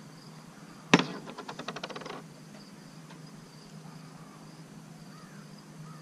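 A sharp click about a second in, followed by a quick rattling run of ticks that fades out within about a second, over steady high insect chirring.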